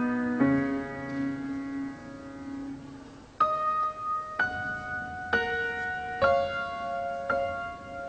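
Slow solo piano music: a held chord fading away, then single notes struck about once a second.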